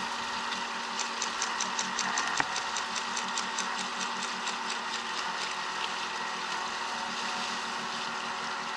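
Another player's airsoft gun firing close by: a rapid string of sharp clicks, about six a second, running for some four seconds from about a second in, over the steady rush of a stream.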